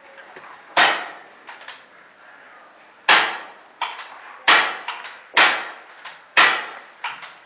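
Paintball markers firing: five loud single shots spread irregularly over several seconds, each with a short ringing tail, and fainter pops and smacks in between.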